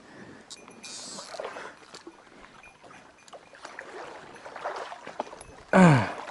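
Water splashing and sloshing in a shallow stream while a hooked fish fights on the line. Near the end comes a short, loud human grunt that falls in pitch.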